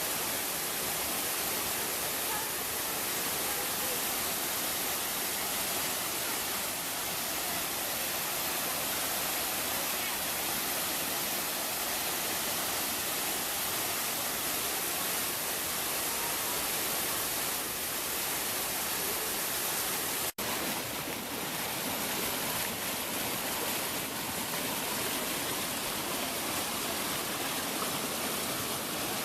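Waterfall: a steady rush of falling water, broken once by a brief cut about two-thirds of the way through.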